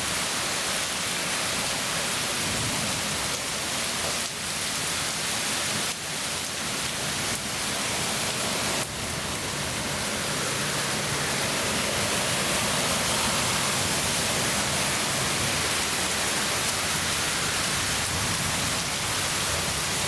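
Heavy rain falling steadily, with runoff water pouring down the street and over the steps. About halfway through, a pickup truck drives past through the flooded street.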